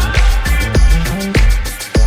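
Background music with a heavy bass beat, electronic hip hop style.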